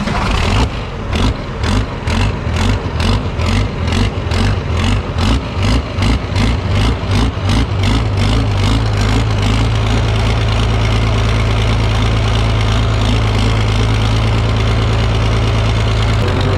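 An engine runs with an uneven beat of about three pulses a second for the first half. Around nine seconds in it settles into a steady idle.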